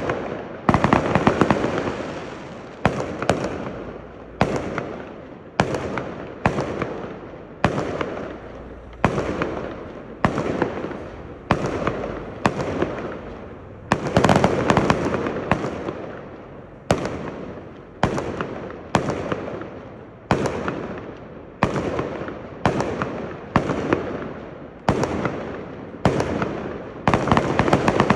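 Aerial fireworks bursting in a steady series, about one bang a second, each followed by a fading, echoing tail. The bangs come thicker and closer together about a second in, about halfway through and near the end.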